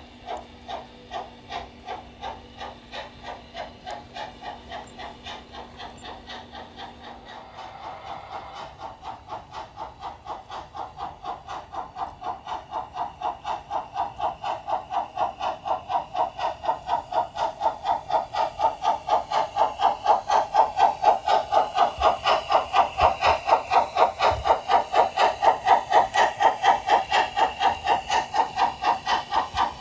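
Sound system of an LGB G-scale model of a Harz narrow-gauge Mallet steam locomotive playing rhythmic steam exhaust chuffs through its speaker. The beat grows steadily louder and a little quicker as the locomotive gets under way.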